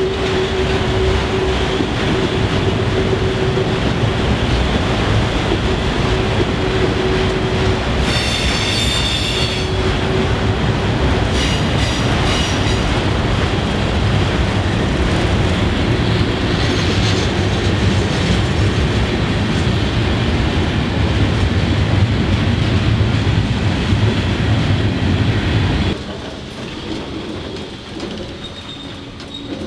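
Freight train of tank cars and autorack cars rolling past close by: a steady rumble and clatter of steel wheels on rail. A held wheel squeal runs through the first several seconds, and a brief higher squeal comes about eight seconds in. Near the end the sound drops suddenly to a quieter passing of tank cars.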